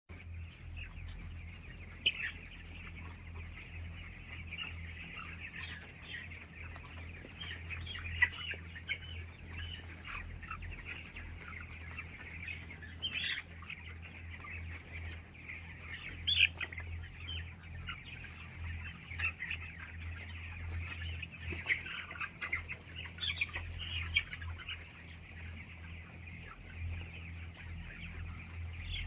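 A flock of chickens calling continuously, many overlapping short calls with a few louder squawks standing out, over a steady low hum.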